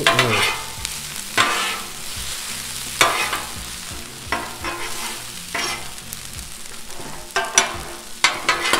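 Fried rice and vegetables sizzling on a hot Blackstone flat-top griddle while two metal spatulas scrape, chop and toss them. Sharp scrapes and clanks of steel on the griddle come at irregular intervals over a steady sizzle, several close together near the end.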